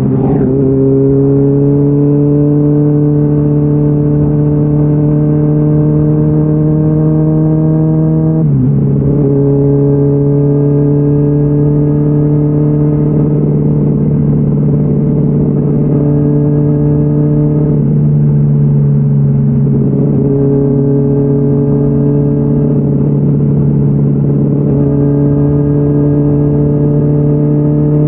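Honda CBR600RR inline-four engine through a GPR Deeptone exhaust with the dB killer removed, pulling under load. The pitch climbs gradually and drops abruptly several times, as at upshifts.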